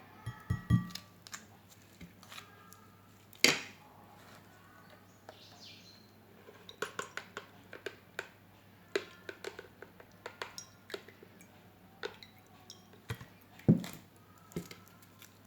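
Kitchenware knocking and clinking as the turnip-and-honey syrup is strained through a strainer into a dish: a few sharp knocks near the start, about three and a half seconds in and near the end, with a run of lighter clicks in between.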